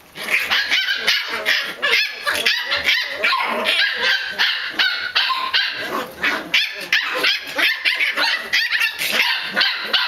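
A litter of Pembroke Welsh Corgi puppies barking and yipping over one another without a break, high-pitched and loud.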